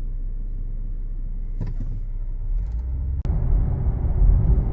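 Car engine and road rumble heard from inside the cabin while driving. It grows louder and rougher about three seconds in, after a brief click.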